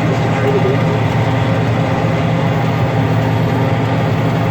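John Deere 9600 combine running steadily while harvesting barley: a constant low drone made of several steady hum tones, with no change in pitch or load.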